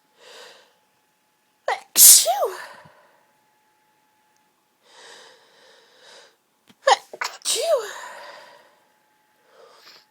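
A woman sneezing twice, about two seconds in and again near eight seconds. Each sneeze is led by a sharp catch of breath and ends in a short voiced cry that falls in pitch, with soft breathy inhales between them.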